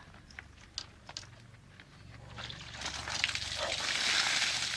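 Ice water pouring out of a large cooler and splashing down over a person, building up from a trickle to a heavy, steady splash about halfway in.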